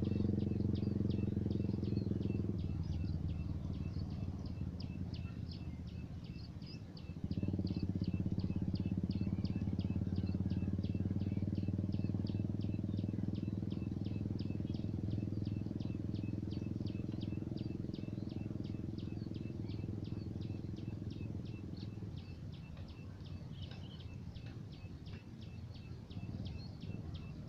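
A small engine running steadily, suddenly louder about seven seconds in and fading after about twenty-two seconds. Over it, high chirps repeat rapidly and evenly, several a second.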